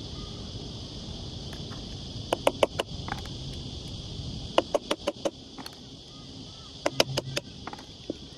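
Sharp clicks and knocks in three quick clusters of four or five, as an air-conditioner fan motor with its fan blade attached is handled and turned over, over a steady high hiss.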